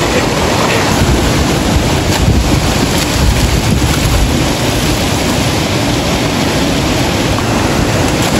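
Fast-flowing stream rushing and churning as white water through a rocky pool, with swimmers splashing in the current. A low rumble of wind buffets the microphone.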